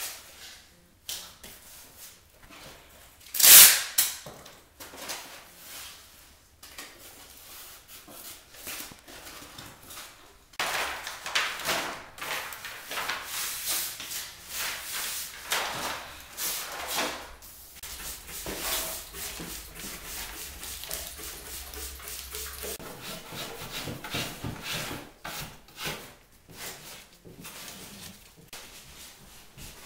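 Irregular scraping, rustling and knocks of hands-on wall-prep work, with one sharp loud knock about three and a half seconds in and a busier stretch of scraping in the middle.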